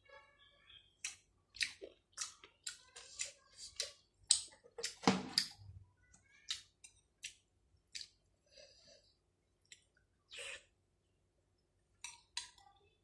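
A person chewing a mouthful of rice and chicken in gravy close to the microphone. It is a run of short, wet smacking mouth sounds, dense for the first few seconds and sparser after, with one louder, fuller sound about five seconds in.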